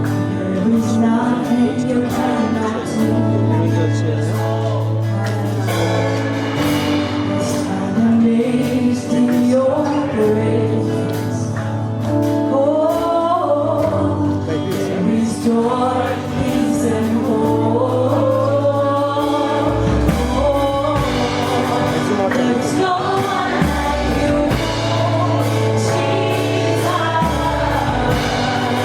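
Gospel music with singing: a choir or worship singers over steady sustained bass notes.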